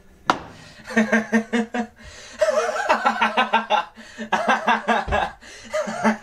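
A man laughing, in several runs of quick pulsed chuckles, with a sharp click about a third of a second in.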